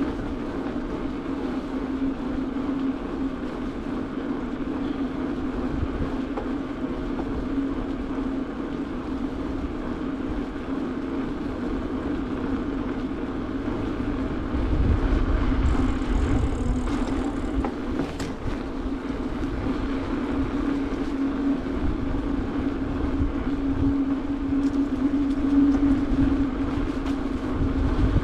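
Bicycle rolling over asphalt: a steady tyre hum with low wind rumble on the microphone, which grows louder about halfway through.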